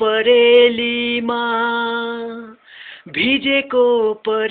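A man singing a Nepali song unaccompanied, holding one long steady note for about two and a half seconds, then taking a breath and starting the next phrase.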